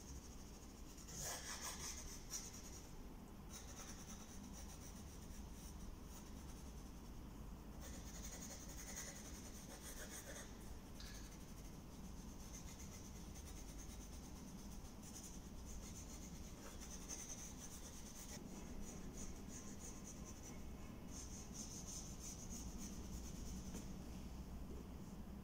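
Pencil scratching and rubbing on drawing paper as a portrait is sketched, in runs of short strokes with brief pauses between them.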